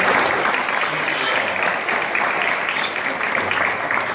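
Audience applauding, a dense clapping that eases slightly toward the end.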